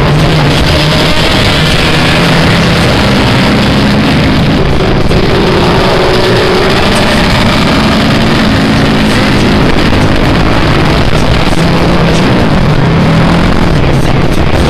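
Engines of sport ATVs running hard on sand, their pitch rising and falling.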